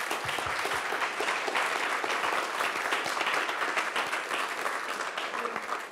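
Audience applauding: many hands clapping in a dense, steady patter that dies away near the end.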